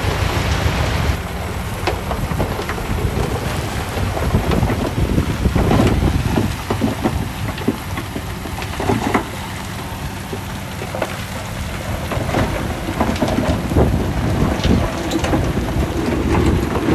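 Bulldozer working: its diesel engine running under load beneath a dense crackle of soil and stones being pushed, with many small knocks throughout.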